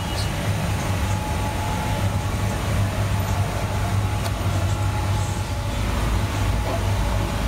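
Steady low mechanical rumble with a constant hum, unbroken throughout.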